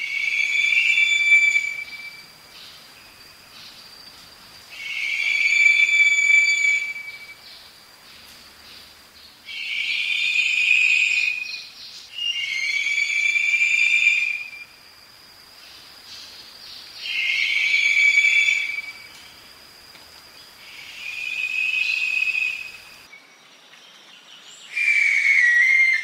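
Lesser sooty owl (Tyto multipunctata) calling: a series of drawn-out whistling screeches, each about two seconds long, repeated seven times at intervals of three to four seconds.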